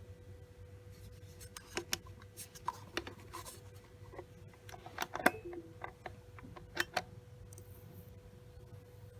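WD Caviar Blue hard drive making irregular sharp clicks of varying loudness, the loudest about five seconds in, over a steady faint hum: the click of death of a failing drive.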